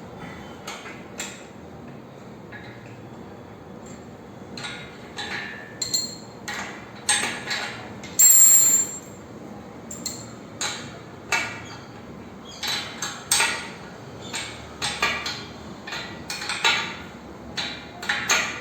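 Steel power-rack parts and bolts being handled and fitted: irregular sharp metal clinks and clanks, some ringing briefly, with the loudest clank about eight seconds in ringing for nearly a second.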